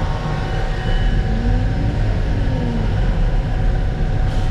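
Concrete mixer truck running steadily, its diesel engine and turning drum making an even low rumble, with a faint tone that rises and then falls about halfway through.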